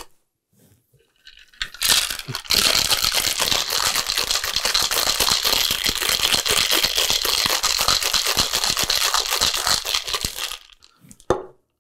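Ice cubes rattling inside a Boston cocktail shaker (metal tin fitted over a mixing glass) as a cocktail is shaken hard to chill and mix it. The rattle starts about two seconds in, runs evenly for about eight seconds and stops suddenly, followed by a short knock near the end.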